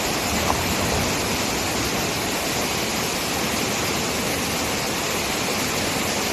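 Waterfall: a steady, loud rush of water falling with great force.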